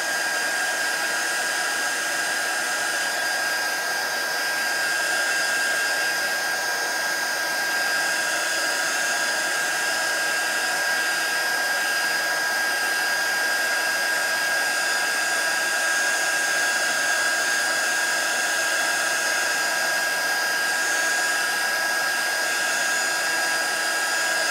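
Craft heat tool running steadily, blowing hot air to dry wet paint on a paper board: an even rush of air with a steady high whine.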